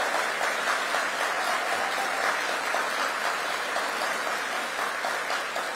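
Audience applauding, a steady dense clapping that starts to fade near the end.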